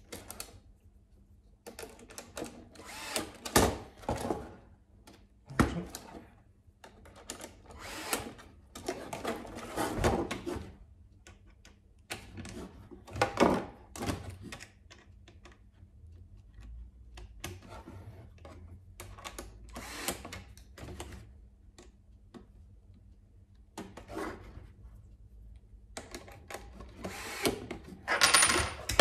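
Small cordless screwdriver run in short bursts, driving screws into plastic fender parts, among clicks and knocks of the plastic parts and small hardware being handled. The bursts come irregularly, a second or two at a time, with short pauses between.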